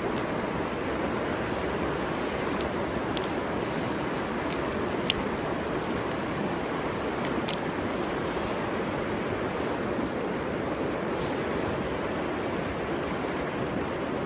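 River water running steadily, with a few short sharp clicks in the first half.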